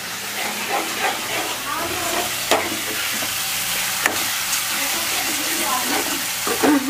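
Onion-tomato tadka sizzling in an aluminium kadhai while a steel ladle stirs and scrapes through it, with two sharp clinks of the ladle on the pan, one about a third of the way in and one just past the middle.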